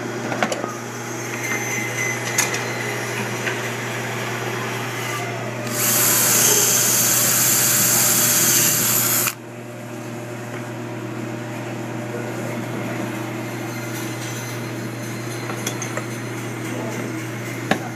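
Cordless drill driving a screw into a wooden board, running for about three seconds and stopping suddenly. A steady low hum and a few small knocks sound before and after.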